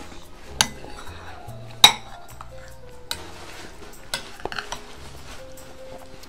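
A metal spoon clinking and scraping against a bowl as porridge is scooped up, with a few sharp clinks; the loudest comes about two seconds in.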